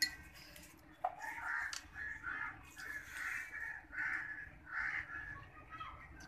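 A crow cawing over and over, about eight caws in a steady run.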